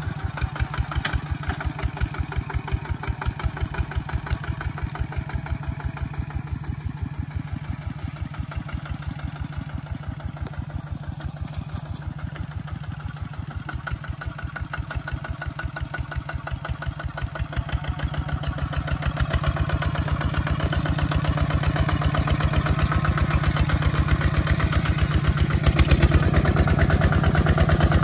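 Single-cylinder diesel engine of a Kubota walk-behind tractor running steadily while pulling a disc plough through the soil, a rapid, even thumping of about nine firing strokes a second. It is somewhat fainter around the middle and grows louder over the last several seconds as the tractor comes close.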